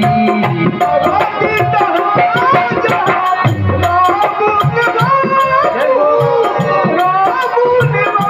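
Instrumental interlude of a Hindi devotional bhajan: a melody with sliding notes played over a steady tabla and drum rhythm.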